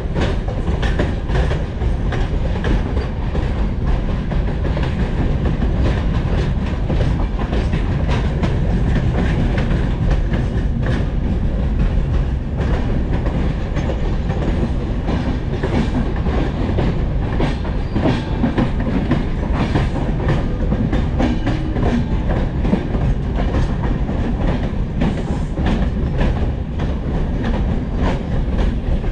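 Passenger train running along the track: a steady loud rumble with the rapid clatter of wheels over the rails.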